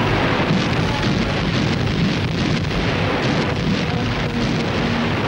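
A continuous din of bomb explosions, many blasts running together into one dense rumble, from a wartime bombing soundtrack.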